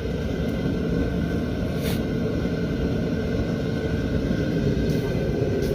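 Mr. Heater propane heater running on its high setting: a steady rushing noise with a low rumble and a faint steady whine, plus a couple of brief clicks.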